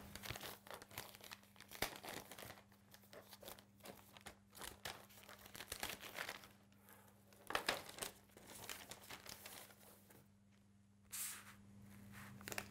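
Faint paper and tissue-paper crinkling and tearing as a parcel is unwrapped by hand, in short irregular rustles with pauses between them, over a low steady hum.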